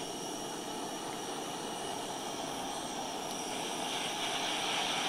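Handheld butane torch flame hissing steadily while heating a thermal banger on a dab rig. It gets slightly louder and brighter about three and a half seconds in.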